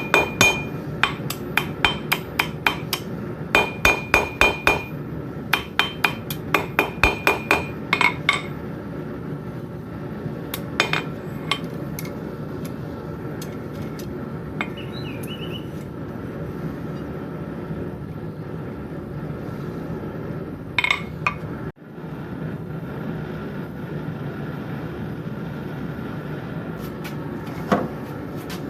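Blacksmith's hammer striking steel on an anvil in quick runs of blows, each with a high ringing note, which stop about eight seconds in. After that a steady noise continues, with only a few single strikes.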